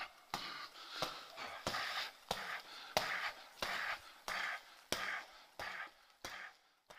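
Steady run of punches thrown against a stretched resistance band, about one and a half a second. Each punch is a short sharp click followed by a hissing exhale.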